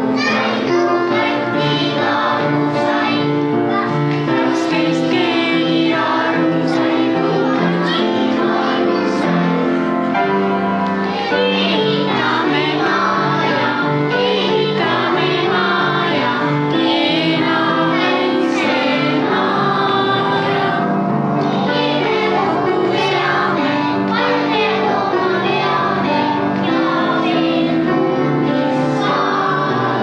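A group of young children singing a song together over instrumental accompaniment, with a steady stepping bass line.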